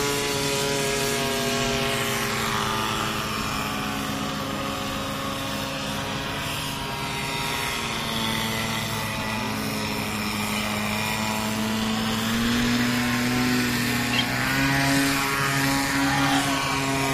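Radio-controlled model airplane engine and propeller running steadily at high revs, the pitch shifting slightly and rising about three-quarters of the way through as the plane manoeuvres.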